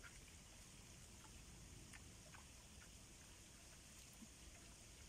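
Near silence: faint steady hiss with a few soft, scattered ticks.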